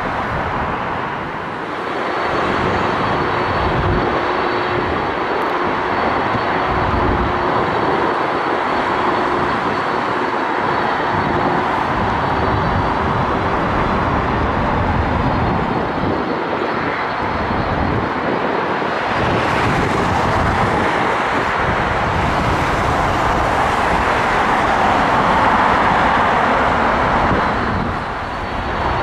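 Jet airliner engines running on the airfield: a steady rushing noise with a faint high whine and a lower hum held under it.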